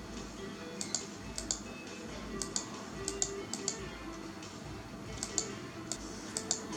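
Faint background music with short soft notes, over scattered, irregular sharp clicks.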